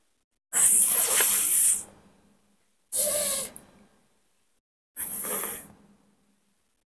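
A voice making the phonic /f/ sound three times: breathy "fff" hisses of air pushed between teeth and lip, the first about a second long, the other two shorter.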